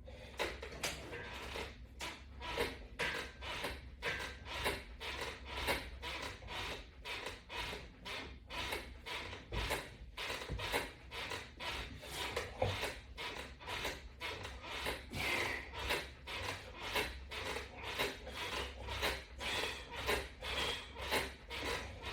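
Rhythmic rubbing and scraping from sit-up repetitions, a stroke about twice a second, steady throughout.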